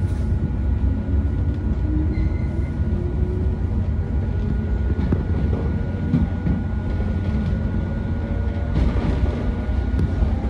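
JR 115-series electric train running, heard from inside the passenger car: a heavy steady rumble of wheels and running gear, with a faint motor tone rising in pitch as it gathers speed.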